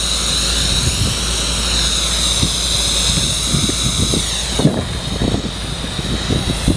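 Compressed air rushing out from a rubber ship-launching airbag under a barge hull, a loud steady hiss with a wavering whistle in it. The hiss drops away abruptly about two-thirds through, leaving low irregular thumps.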